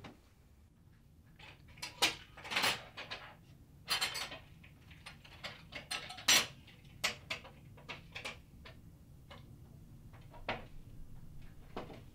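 Plates and cutlery clinking and knocking in an irregular string of sharp clatters as a table is set for a meal.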